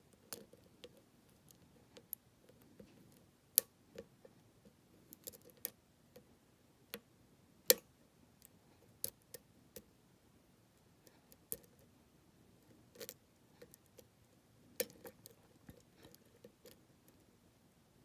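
Irregular small metallic clicks and ticks from a hook pick lifting the pins of a six-pin challenge lock cylinder, which is held under tension by a wrench during single-pin picking. The lock is still not open.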